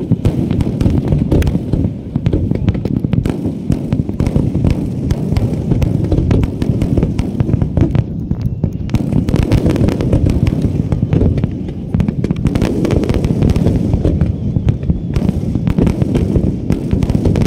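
Fireworks display: aerial shells bursting in a rapid, unbroken barrage of booms and pops, with no pause between them.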